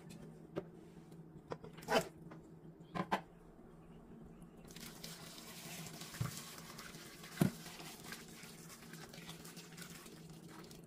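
Raw chicken gizzards tipped from a glass bowl into a metal pot of water, with a few knocks and splashes, then hot water poured steadily onto them in the pot, with one sharp knock partway through the pour.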